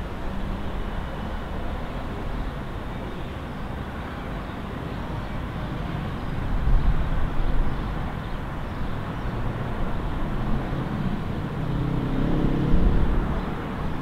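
Steady wash of city road traffic. A vehicle passes about halfway through, and a louder engine swells near the end.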